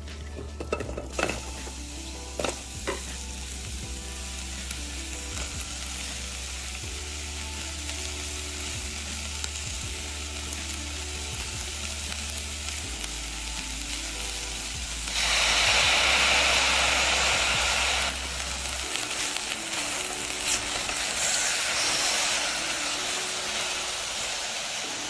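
A few knocks as apple pieces drop into a stainless steel saucepan, then the apples and spices sizzling in the hot pan while being stirred. The sizzle is loudest for about three seconds past the middle.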